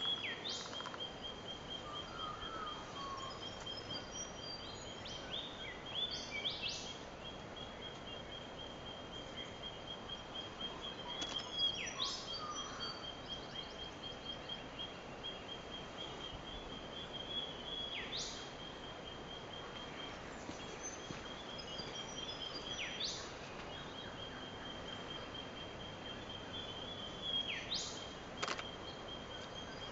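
Australian bush birds calling in the early morning. A steady, high-pitched pulsing trill runs throughout, and every five or six seconds a sharp, fast whistled sweep cuts across it, over a faint outdoor hiss.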